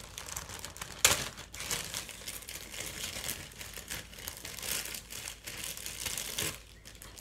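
Slime being squeezed and worked by hand, giving a continuous crinkly crackling, with one sharp, louder snap about a second in.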